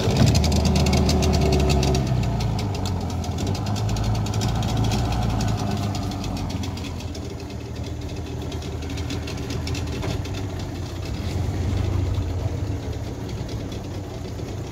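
Suzuki tiller outboard motor running just after a cold-morning pull start, the throttle opened a little. It is loudest in the first couple of seconds, then settles to a steady run.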